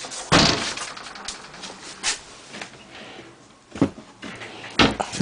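Knocks and thuds of a wooden drawer being handled and tennis balls knocking inside it: a loud thud about a third of a second in, lighter knocks after it, and another loud knock near the end.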